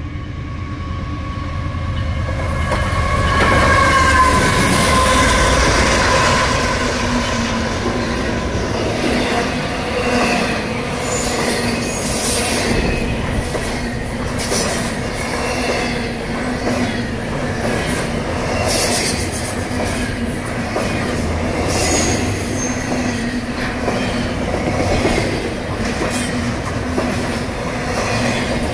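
Canadian Pacific diesel freight locomotive approaching and passing close, loudest about four seconds in, its pitch dropping as it goes by. Then a double-stack intermodal container train rolls past steadily, with wheels clacking over the rail joints and brief high wheel squeals now and then.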